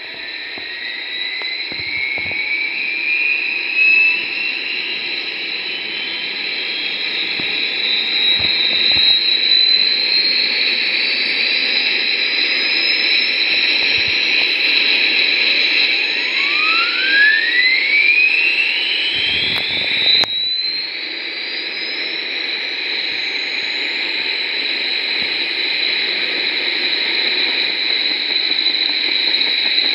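RC sound module playing a synthesized Bell UH-1 Huey turbine start-up. A whine rises steadily in pitch over the first several seconds and settles into a steady high turbine whine. About halfway through, a second whine climbs in pitch, with a brief cut near two-thirds of the way in.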